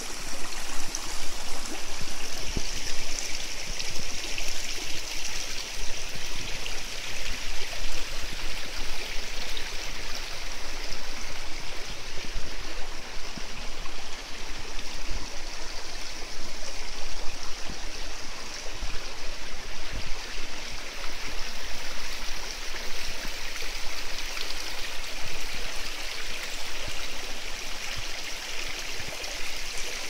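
Mountain river rushing steadily over rocks: an even, unbroken hiss of flowing water.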